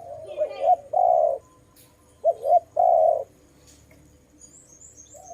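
Spotted dove cooing in two phrases, each a couple of short notes followed by a longer, rolling coo. Faint high chirps of a small bird come in near the end.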